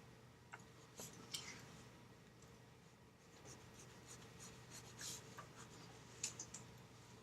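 Graphite pencil scratching faintly on paper in short, irregular shading strokes.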